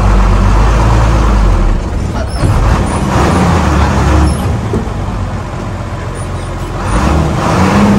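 Old bus's diesel engine heard from inside the cab, pulling hard and then easing off twice, its note dropping and climbing again as the driver shifts gears.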